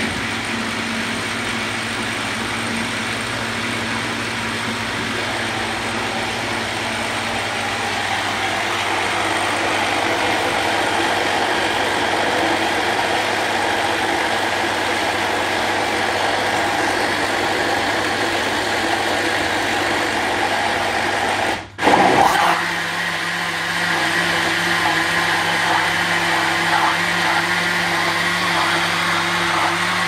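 Countertop blender motor running steadily as it blends a thick cornmeal cake batter. The sound drops out for a moment about two-thirds of the way through, then carries on with a slightly changed tone.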